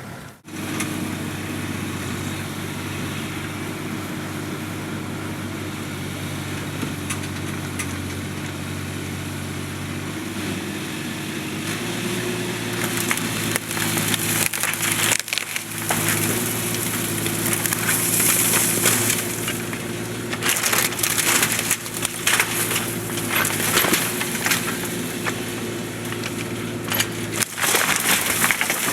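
Bobcat 328 compact excavator's Kubota diesel engine running steadily, its pitch rising about twelve seconds in as it comes under load. From then on, the old barn's timbers crack, splinter and crash repeatedly as the excavator knocks the barn down.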